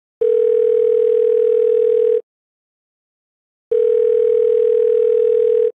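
Telephone ringback tone: two long, steady beeps of about two seconds each, a second and a half apart, with the thin sound of a phone line.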